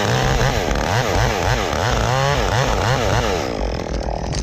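Chainsaw engine revving up and down over and over, about two to three times a second, then dropping back near the end.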